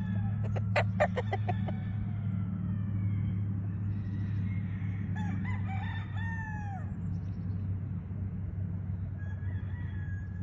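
A rooster crows once about halfway through, with a fainter crow near the end, over a steady low hum. A quick run of sharp clicks or knocks comes in the first two seconds.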